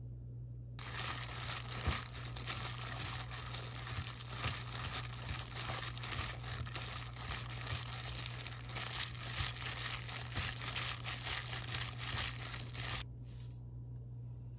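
A hand in a thin plastic glove tossing and squeezing blanched chwinamul greens with seasoning paste in a stainless steel bowl: continuous plastic crinkling and wet leaves squishing, with small clicks against the bowl. It starts about a second in and stops abruptly near the end.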